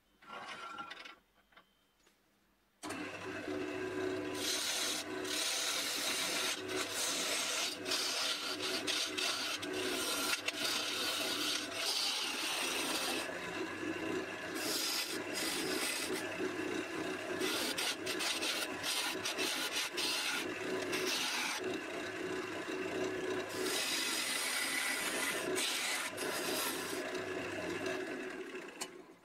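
Sandpaper rubbing against a spinning elm vase on a wood lathe, over the steady hum of the lathe running. The hiss of the abrasive on the wood comes and goes in strength as the sanding pressure changes.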